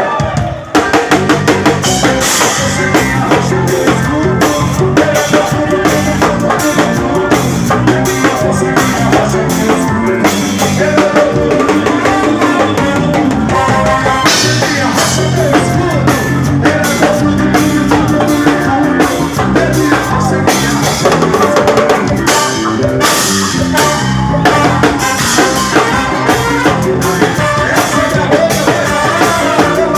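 Drum kit played with bass drum, snare and rimshot hits in a steady, busy forró rhythm over a full band recording.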